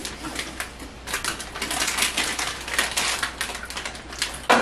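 Plastic snack wrappers crinkling as packets are opened: an irregular run of crackles, with one sharper crackle near the end.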